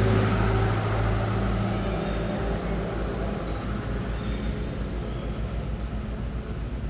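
A motor vehicle's engine hum, loudest at the start and fading away over about two seconds, leaving a low, fluttering rumble.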